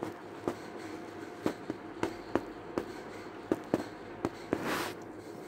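About a dozen light, sharp clicks or taps at an irregular pace, with a short burst of hiss about four and a half seconds in.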